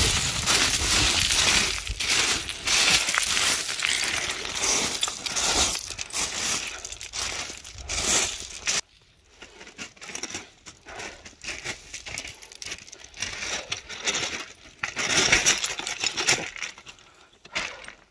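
Hiking boots crunching over loose scree, small stones clinking and shifting underfoot. The crunching stops abruptly about nine seconds in, and softer, sparser crunching follows, with a louder flurry near the end.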